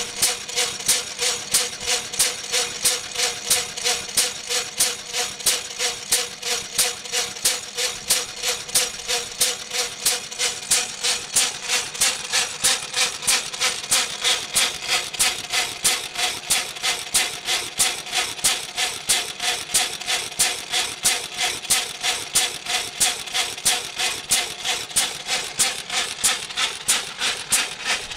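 Horwood Bagshaw OFG 6HP open-crank, throttle-governed single-cylinder stationary engine running steadily, firing on every cycle with an even rhythm of exhaust beats, about three a second.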